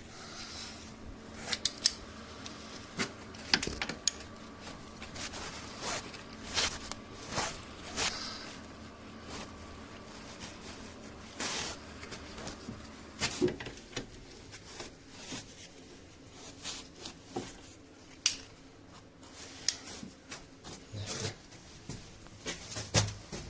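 Irregular metallic clinks and knocks of hand tools, a ratchet among them, as the front subframe bolts are worked on. The sharpest knock comes about a second and a half in.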